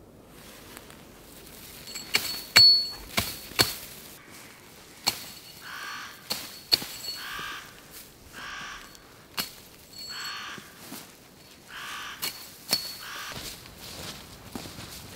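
A crow-like bird cawing in two runs of harsh calls about a second apart, starting about five seconds in. Under it come sharp cracks and snaps, loudest near the start, as spruce branches are broken off by hand.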